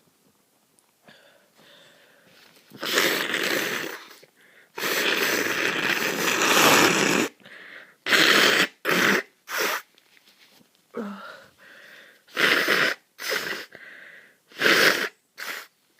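A flu-congested person blowing their nose hard: two long, noisy blasts, the second lasting about two and a half seconds and the loudest. A run of short sniffs follows.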